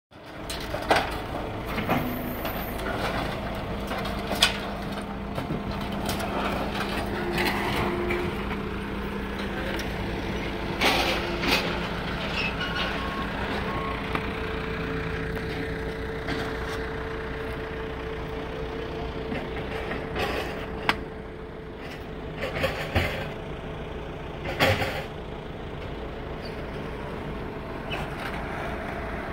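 Bobcat skid-steer loader's engine running steadily, its pitch shifting a few times as it works. Scattered sharp bangs and clatters of demolition debris are grabbed and dropped by the grapple.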